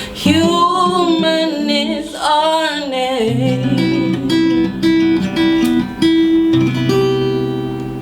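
Acoustic guitar music, with a wordless sung melody gliding and wavering over the first three seconds, then sustained notes stepping from one pitch to the next.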